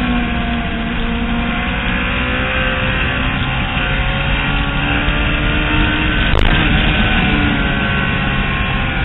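Track-day motorcycle engine running at nearly steady revs, heard from on board the bike, with a sharp click about six seconds in.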